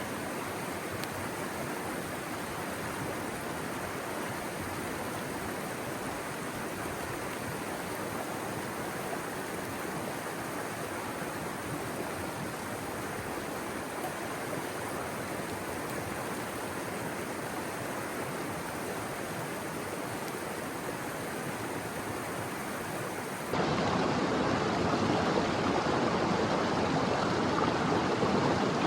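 Mountain river rushing, a steady noise; near the end it steps suddenly louder and fuller.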